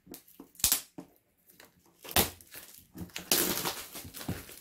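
Plastic shrink-wrap being torn and pulled off a cardboard board-game box. There are a couple of sharp crackles, then steady crinkling of plastic from about three seconds in.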